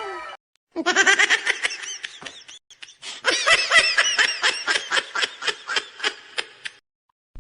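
A person laughing hard in a long run of short, quick bursts, starting about a second in and stopping shortly before the end.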